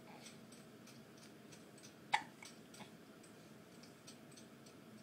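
A baby's hiccup: one short, sharp hic about two seconds in, with faint clicking throughout.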